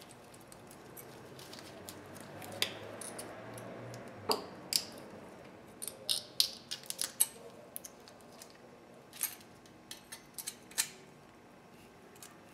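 Irregular sharp metal clicks and clinks as new brake pad hardware clips are pressed and snapped onto a 2010 Honda Accord's brake caliper mounting bracket. Several clicks come close together a little past the middle.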